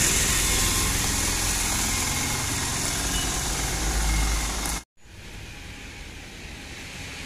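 Motor vehicle running along a road, a steady low rumble with rushing wind noise on the microphone. It cuts off abruptly about five seconds in, giving way to quieter outdoor road noise.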